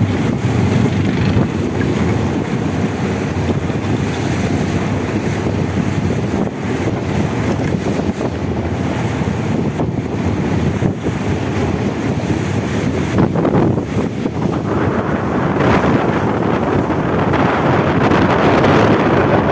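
Wind buffeting the microphone over the rush of water and spray along the hull of a fishing boat under way in choppy sea, with a boat engine running underneath. The rushing grows louder and brighter in the last few seconds.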